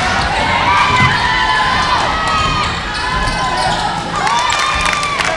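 Basketball shoes squeaking on the court floor as players run and cut: several short squeaks that rise and fall in pitch, with a few sharp knocks near the end.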